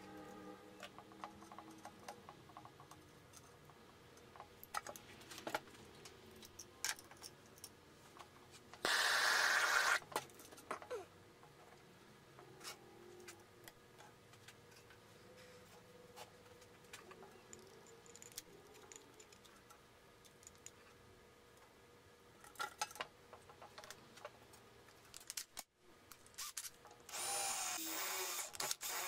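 Scattered clicks and handling noises, with a loud burst lasting about a second roughly a third of the way in. Near the end a cordless drill whirs as it drives a screw into a wooden base.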